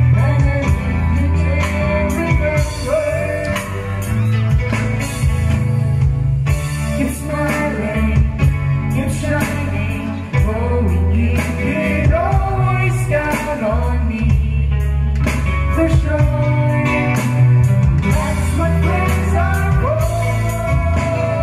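Live band playing a song, loudly amplified: a woman sings a melody into a microphone over heavy bass, guitar and keyboard.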